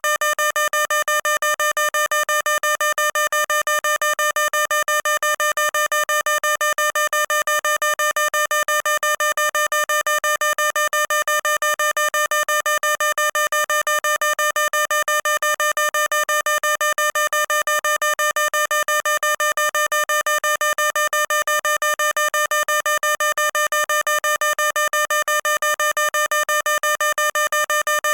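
Fire alarm sounder giving a loud, harsh electronic beep: one unchanging tone pulsed rapidly and evenly, without pause.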